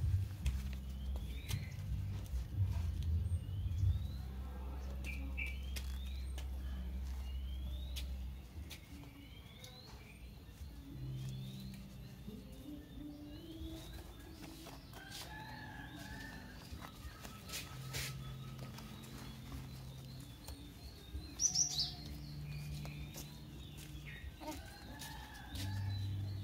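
Short, high chirps, each rising in pitch, repeating every second or two and thinning out after about ten seconds, over a low steady hum that drops away about eight seconds in.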